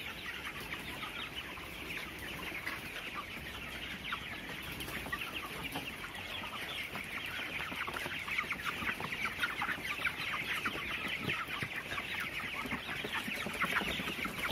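A flock of 24-day-old broiler chickens cheeping, a dense unbroken chorus of many short high calls.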